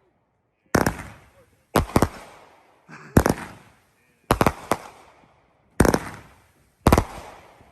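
A 20-shot firework cake, World Class Fireworks' 'Come On' 500-gram cake, firing in sequence. There are about seven sharp bangs, roughly one a second with a couple of quick doubles, each trailing off before the next.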